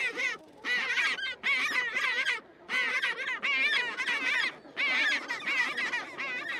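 Penguins calling in a colony: a run of quavering, braying calls, one after another with short breaks between them.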